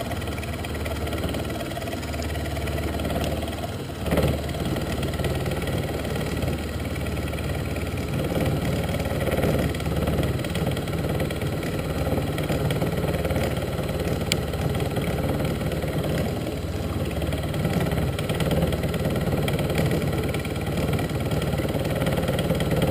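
Titan TM25V milling machine running at about 530 RPM, its 9 mm end mill taking a 2.5 mm deep conventional-milling cut in bright mild steel: a steady spindle-and-cutting sound, with the small machine coping with no problem. A short sharp knock comes about four seconds in.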